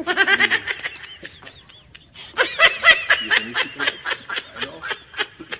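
Laughter in two bouts: a short burst at the start, then a longer run of rapid, high giggling from about two seconds in that trails off near the end.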